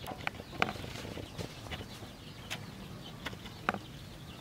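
Chickens clucking: several short, sharp clucks spaced irregularly, the loudest about half a second in and again near the end.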